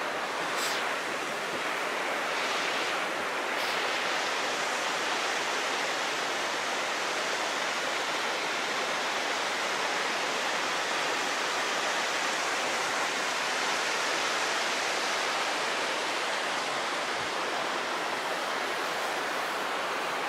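Creek water running below the bridge: a steady, even rush of flowing water.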